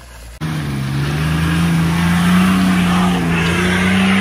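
Nissan Patrol's engine revving hard under load, its pitch creeping slowly up, as it tries to climb a muddy clay incline and hangs up on its differential in the ruts. It starts abruptly about half a second in.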